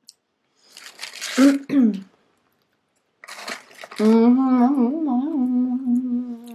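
A woman humming a long, closed-mouth 'mmm' while eating, wavering gently in pitch, the appreciative hum of someone enjoying their food. About a second in there is a shorter breathy vocal sound.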